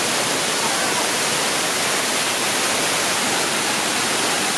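Multi-tiered waterfall pouring over wide rock ledges: a steady rush of water.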